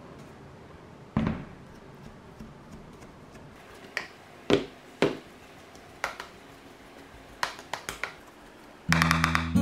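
Fork mashing potato in a bowl: scattered sharp clicks and knocks as the fork strikes and scrapes the bowl, coming in a quick run of several near the end. Acoustic guitar music comes in just before the end.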